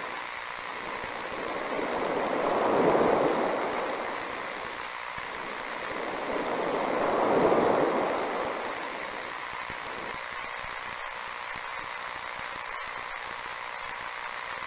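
A rushing hiss that swells and fades twice, each swell peaking four to five seconds apart, then settles into an even, thinner static hiss about ten seconds in, broken by a couple of brief dropouts.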